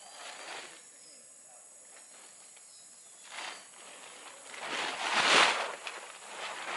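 Large plastic tarp rustling as it is unfolded, with a couple of brief crinkles, then a loud swish about five seconds in as it is lifted and shaken out.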